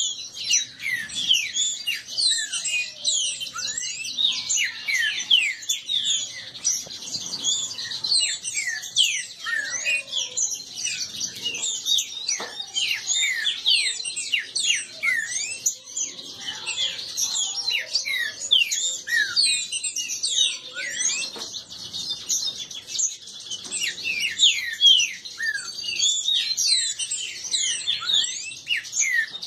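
Green-winged saltators (trinca-ferro) singing in dispute: a dense, unbroken chatter of quick, high, down-slurred chirps, many overlapping.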